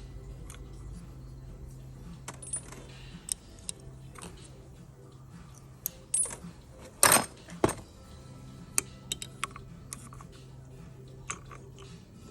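Small metal parts of a GM power steering pump clicking and clinking as they are handled during disassembly, with two louder clanks about seven seconds in.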